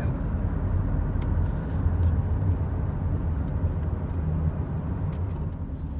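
Steady low rumble of road and engine noise heard from inside the cabin of a moving car.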